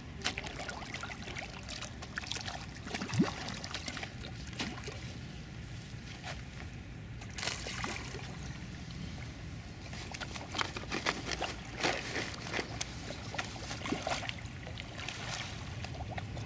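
Carp feeding on floating bread at the water's surface: a run of small, irregular splashes, slurps and sloshes as the fish swirl and break the bread up.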